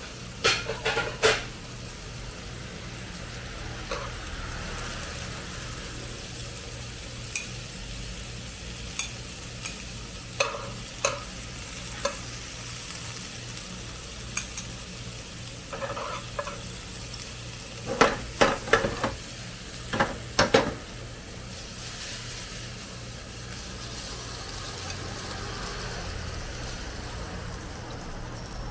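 Stir-fried instant noodles with steak and vegetables sizzling steadily in a nonstick wok on a portable gas stove. Utensils knock and scrape against the pan as the food is moved, with single knocks spread through and quick clusters of louder knocks past the middle.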